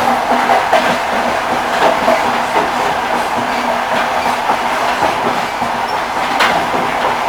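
Railway carriage wheels rolling along the track: a steady rushing noise with a low hum and a few sharp clacks as the wheels pass over rail joints.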